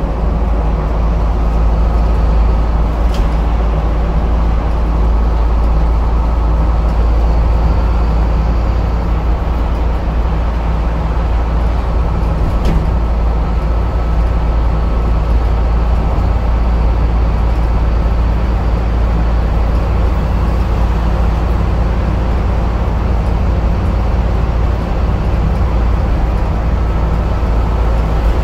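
Scania N230UD Enviro 400 double-decker bus with its 9.3-litre five-cylinder diesel running at a steady drone, with no big change in revs. A faint click comes twice.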